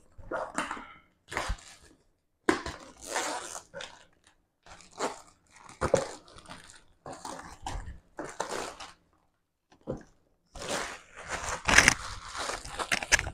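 Plastic shrink wrap being torn and peeled off a cardboard retail box, crinkling and crackling in irregular bursts with short pauses between them.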